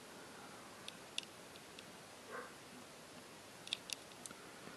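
Faint light clicks of a small airsoft gearbox part being handled in the fingers, a handful of ticks in two clusters, about a second in and again near the end.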